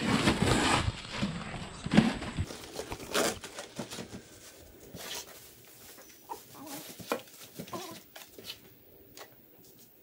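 Rustling and handling noise from hands working with paper and birds in a plastic basin, loudest in the first couple of seconds with a sharp knock about two seconds in, then scattered light clicks and knocks.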